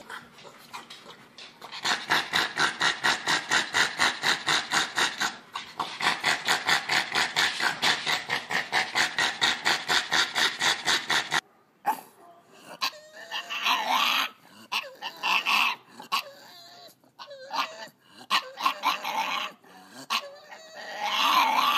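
A dog making fast, evenly repeated sounds, about five a second, for around nine seconds. After an abrupt cut, a dog whines and whimpers in rising and falling cries.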